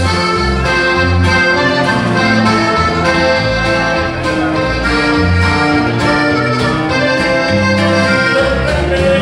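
Loud live norteño band music, heard from the crowd: accordion melody over a steady, rhythmic bass line.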